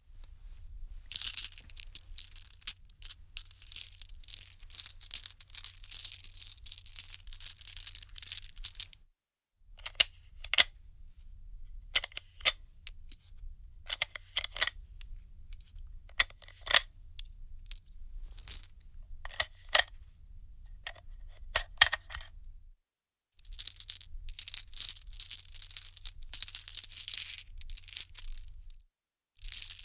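Loose metal cartridges being handled, jingling and clinking against each other: a dense rattle for several seconds, then a spell of separate clinks, then dense rattling again.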